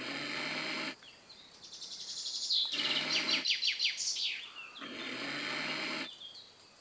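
Bird song: a quick run of high chirps near the middle, set between three roughly one-second bursts of rough noise with a low steady hum underneath.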